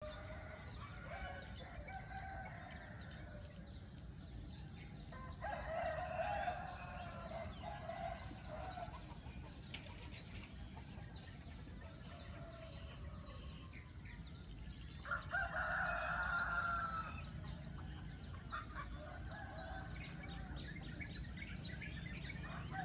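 Roosters crowing again and again, some farther off, with the loudest crows about five and fifteen seconds in, while small birds chirp throughout.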